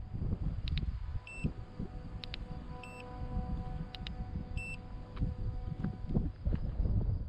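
iScooter i9 electric scooter's display beeping three short times as its buttons are pressed, with sharp clicks from the buttons and from handling the scooter. Near the end there is a knock as the stem is folded down.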